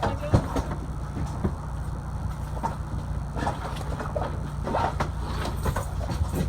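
Steady low engine hum with scattered light knocks and rustles.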